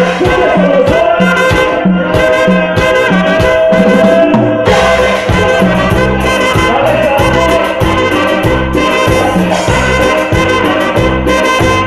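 Cumbia band playing live: trumpets carry the melody over a steady, regular bass-and-drum beat.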